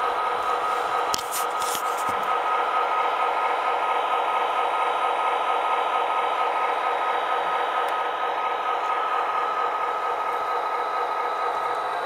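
An MTH Premier O-gauge model of an SD45T-2 diesel locomotive running on track, giving a steady whir with a high hum. The sound mixes its motors and wheels with the diesel engine sound from its onboard sound system.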